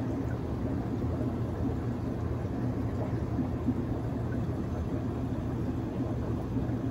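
Steady low hum of an aquarium air supply with the bubbling of air-driven sponge filters in the tank.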